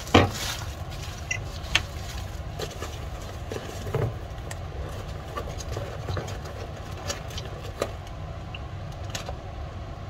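Steady low background rumble with scattered light clicks and taps, the loudest a knock just at the start.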